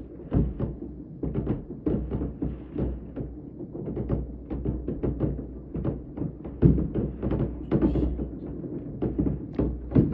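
Many fireworks going off, a dense irregular run of bangs and pops several times a second over a low rumble.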